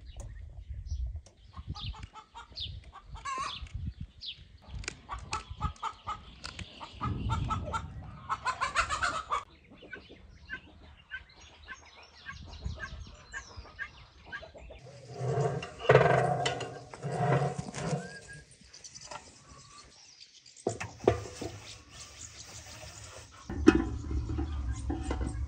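Chickens clucking, with a run of louder, stronger calls about two-thirds of the way through.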